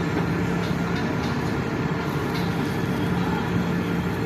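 Steady low engine-like rumble with a constant low hum that fades in and out.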